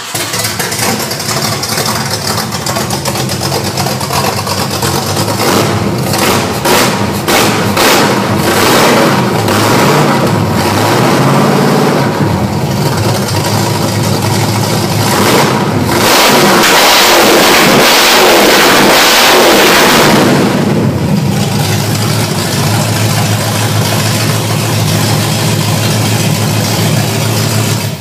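Ford Maverick GT's 302 V8 running on open tuned-length headers with no mufflers, freshly started and still cold. It is blipped several times in the first half, held at high revs for about four seconds past the middle, then settles back to a steadier idle.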